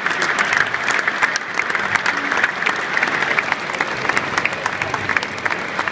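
Stadium crowd applauding, many hands clapping steadily.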